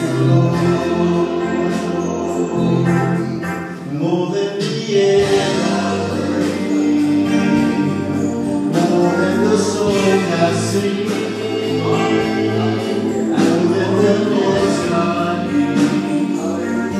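Gospel worship music with singing: long held chords under voices, with a change of chord about four to five seconds in.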